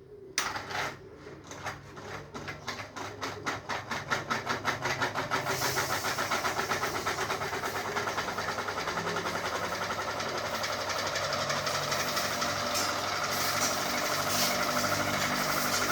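Ceiling fan starting up: a rhythmic beat from the turning blades that speeds up over the first few seconds, then settles into a steady whirring hum at full speed.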